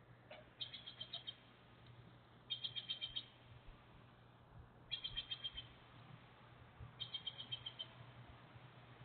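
A small bird calling in short, rapid trills of high notes, four of them about two seconds apart, over a faint steady low hum.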